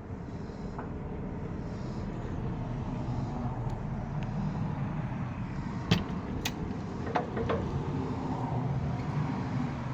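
A vehicle engine running steadily with a low rumble that swells a little and eases near the end, with a few sharp clicks about six and seven seconds in.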